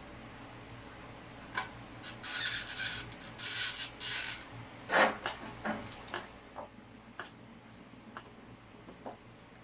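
Handling noises: about two seconds of rustling, then a sharp knock about five seconds in, followed by a string of lighter clicks and taps.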